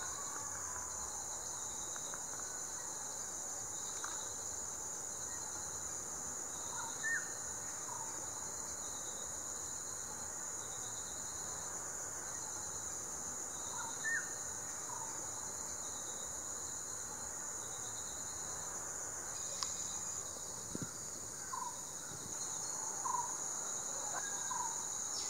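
Steady high-pitched chorus of insects, with a fainter call just below it pulsing in short, even beats. A few faint short chirps come through now and then.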